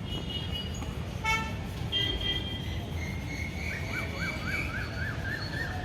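Street traffic rumble with vehicle horns sounding: a short horn toot about a second in and other brief horn tones, then a rapidly repeating rising-and-falling chirp for about two seconds in the second half.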